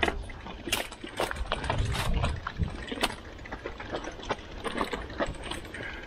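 Mountain bike ridden over a rough dirt trail: the frame and chain rattle with a string of sharp knocks over bumps, over a rumble of tyres on the ground that swells about two seconds in.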